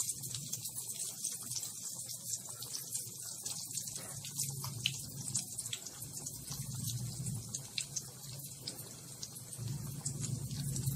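A marinated, gram-flour-coated chicken piece deep-frying in hot oil in a kadhai: a steady crackling sizzle of many small pops, with a low hum underneath. This is the first, half-fry stage of a double fry.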